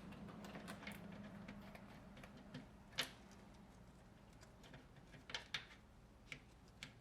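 A few light clicks and taps from engine parts being handled and fitted by hand, over a faint steady hum. The sharpest click comes about three seconds in, and a few smaller ones follow near the end.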